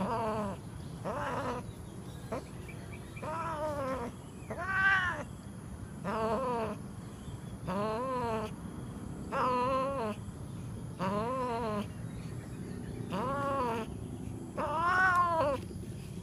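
Cats mating: a cat yowling over and over, about ten drawn-out calls, each rising then falling in pitch and lasting under a second, roughly one every one and a half seconds.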